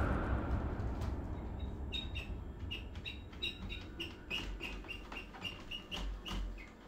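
Bird-like chirping: short high chirps repeating about two or three times a second, starting about two seconds in, over a low rumble with faint clicks.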